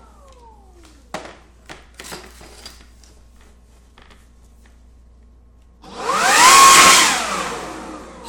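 Battery-powered leaf blower fired in one short blast about six seconds in: a loud rush of air with a motor whine that rises, holds briefly and winds down over about two seconds. Before it, a few light clicks and the falling whine of the blower's motor spinning down from an earlier burst.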